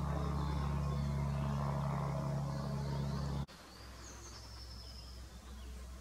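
A steady low hum stops suddenly about three and a half seconds in. It leaves a quieter outdoor background with a few faint, high bird calls.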